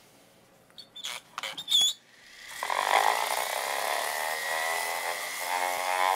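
A few handling clicks and knocks, then about two seconds in a Craftsman electric sander's motor starts and rises to a steady running whine. It is sanding 220-grit paper over the sun-yellowed plastic cover of a solar garden light.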